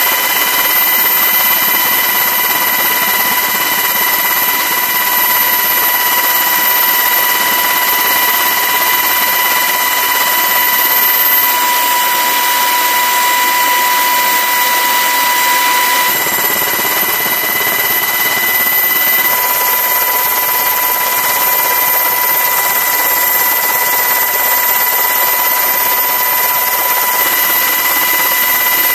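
Steady turbine engine whine, several high tones held over a rushing noise, shifting slightly in tone a few times.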